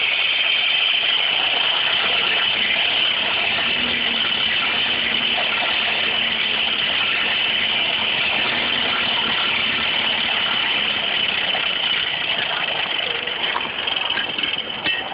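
A steady machine noise, starting suddenly and cutting off about fifteen seconds later.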